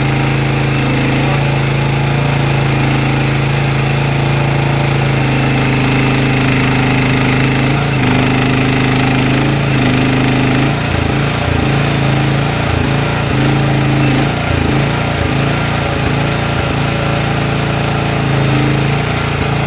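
QH12 mini excavator's engine running steadily while its grapple lifts and moves a tree trunk. From about halfway the engine note dips and recovers again and again as the hydraulics take the load.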